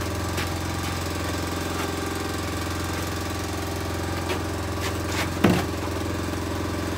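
Boat engine idling steadily, with a few short knocks and clunks on board, the loudest about five and a half seconds in, as hauling of the drift nets begins.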